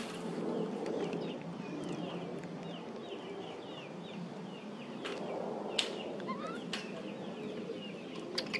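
Quick high-pitched animal chirps, each falling in pitch, repeated many times over the first five seconds and followed by a single rising squeak, over a low steady background murmur.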